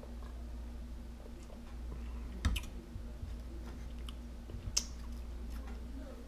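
A few sharp clicks and a knock as a man drinks beer and sets a pint glass down on the table, the loudest about two and a half seconds in, with a soft mouth click near five seconds, over a steady low room hum.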